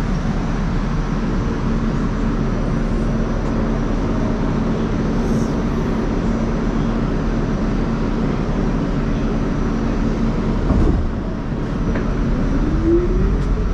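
Inside a New York City subway car: the train's steady rumble and hum, with a short knock about eleven seconds in. Near the end a rising traction-motor whine begins as the train picks up speed.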